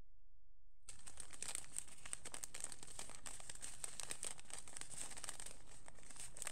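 Small clear plastic zip-lock bags of diamond-painting drills crinkling and rustling as they are handled, a dense, irregular crackle that starts about a second in.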